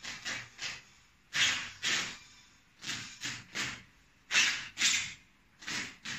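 Nylon shell fabric of a cut-open down jacket rustling and rasping as hands pull the down filling out of it: about a dozen short scratchy bursts, often in quick pairs, with short pauses between.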